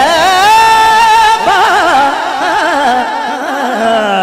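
Male naat reciter singing a long wordless vocal line into a microphone. He holds one note, breaks into fast wavering ornaments about a second and a half in, then slides down in pitch near the end.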